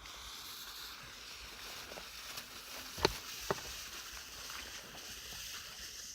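A lit firecracker fuse fizzing with a steady hiss as it burns down, with two sharp clicks about three seconds in.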